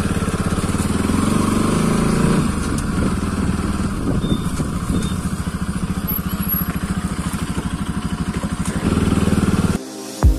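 Bajaj Pulsar NS200's single-cylinder engine running at low revs under way, with a steady, even pulsing of its firing strokes. Near the end it opens up briefly, then cuts off suddenly and music begins.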